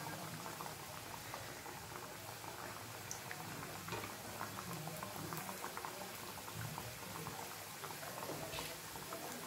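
Samosas deep-frying in oil over a low flame: a steady soft sizzle and bubbling, dotted with many small crackles.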